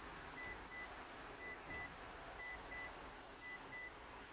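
Car's warning chime beeping faintly in pairs, about one pair a second, a warning that keeps repeating. A low, steady cabin rumble runs underneath.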